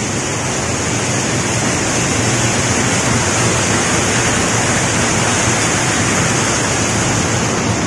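Small waterfall cascading over rocks: a steady, loud rush of splashing water.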